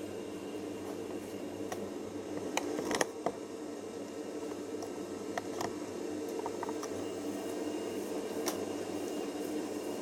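Siemens IQ1430 front-loading washing machine running a full load on its Easy Care prewash: the drum turns the wet laundry over with a steady motor hum. A few sharp clicks come about three seconds in, and again around five and a half and eight and a half seconds.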